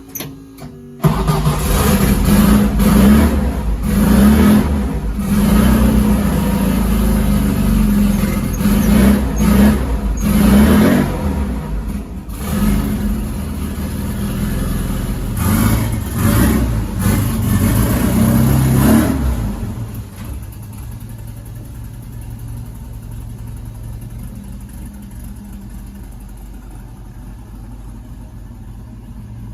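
Turbocharged air-cooled VW Beetle engine starting about a second in and revving unevenly, then settling into a quieter steady run for the last ten seconds.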